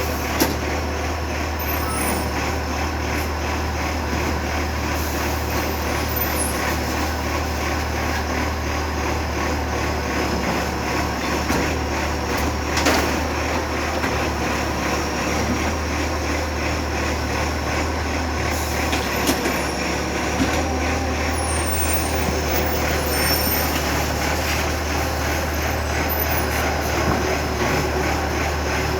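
Garbage truck on an Iveco ACCO chassis, its diesel engine running steadily, with a thin steady high whine over it. A few sharp knocks come at about half a second in and again twice later.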